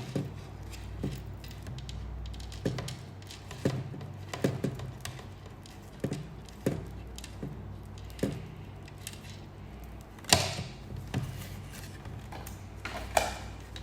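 Scattered knocks and clicks from a hair dryer being handled, about ten in all, the loudest about ten seconds in; the dryer is not heard running.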